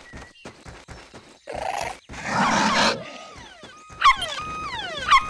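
A loud cartoon animal roar in two bursts about a second and a half in, then bouncy cartoon music with sliding, falling notes and a sharp hit about once a second.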